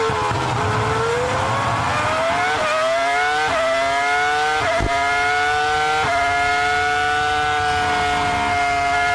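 Onboard sound of a Ferrari Formula One car's engine. The note falls as the car slows through a corner, then it accelerates hard with four quick upshifts, each a brief dip in pitch, before holding a steady high note.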